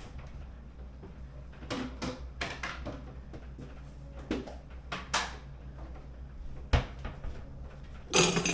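Clicks and knocks of an espresso machine's portafilter being handled and unlocked from the group head, with a sharp thump about two-thirds through and a louder clatter near the end.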